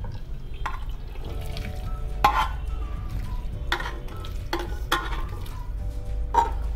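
Steel ladle scraping and clinking against the inside of an aluminium cooking pot as wet cluster bean curry is scooped out into a bowl, about six separate scrapes spread over several seconds.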